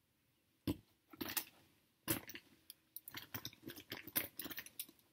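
Pens and pencils clicking and rattling against each other as a pencil case is rummaged through: a few separate knocks at first, then a quicker run of small clicks.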